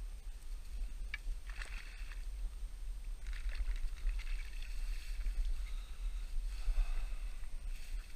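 Water splashing in irregular bursts as a hooked silver Prussian carp is drawn into a landing net and lifted out of the water, over a steady low rumble of wind on the microphone.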